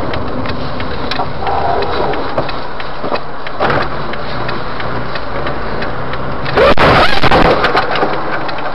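Steady engine and road noise of a car driving, heard from inside the cabin as a dashcam records it, with scattered ticks. About six and a half seconds in comes a loud, harsh burst lasting about a second.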